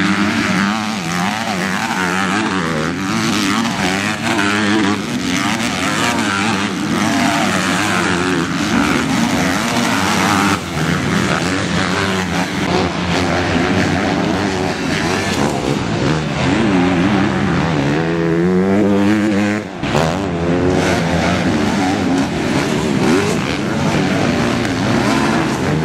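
Several MX2-class motocross bikes racing, their engines revving up and down and overlapping one another. There is a brief drop in level about three-quarters of the way in.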